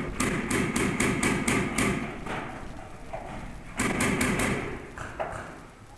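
Paintball marker firing rapid shots, about four or five a second, in two bursts: one at the start lasting nearly two seconds, and a shorter one about four seconds in.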